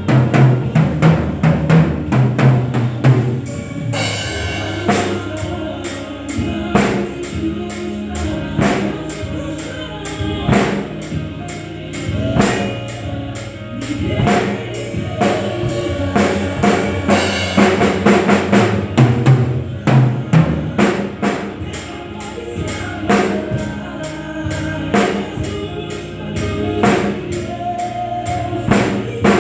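Drum kit played in a steady beat, with kick drum, snare and evenly spaced cymbal or hi-hat strokes, along with instrumental music that carries held bass notes.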